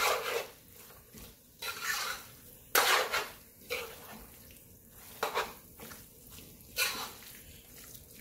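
A metal spoon scraping and knocking against the inside of a large metal pot while stirring pieces of seasoned chicken. There are about half a dozen irregular strokes; the loudest come at the start and about three seconds in.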